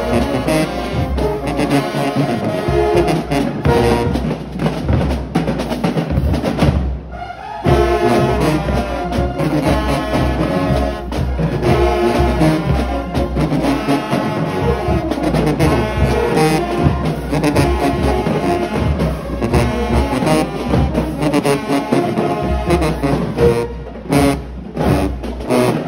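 Marching band brass section, sousaphones and trumpets, playing a loud up-tempo tune with a heavy bass line, breaking off briefly about seven seconds in before carrying on.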